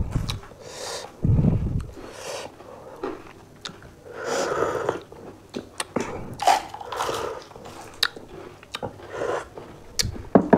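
Close-up chewing and crunching of pani puri: crisp fried puri shells cracking between the teeth, with wet mouth sounds and many sharp little clicks.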